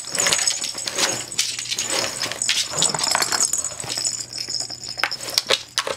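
A dachshund's claws clicking irregularly on a wooden floor as it moves about, with light clinks mixed in.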